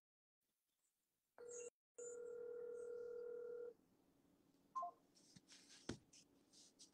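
A phone's call tone: one steady tone of about two seconds, starting about a second and a half in, with a brief dropout. A short beep and a sharp click follow near the end.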